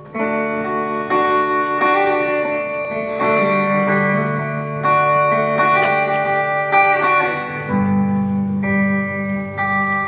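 Live acoustic guitars playing a slow instrumental intro. It opens with a struck chord, and the held notes ring and change every second or so.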